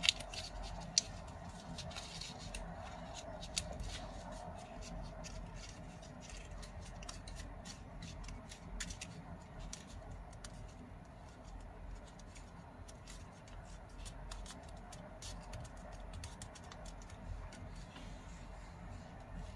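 Sheet of origami paper being folded and creased by hand: light crackling and small clicks of the paper, with a few sharper snaps in the first four seconds.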